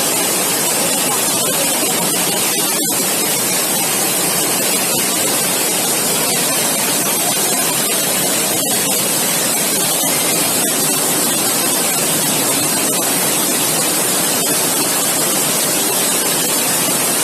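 Fast floodwater rushing down a street as a turbulent torrent, a loud, steady wash of noise that stops suddenly at the end.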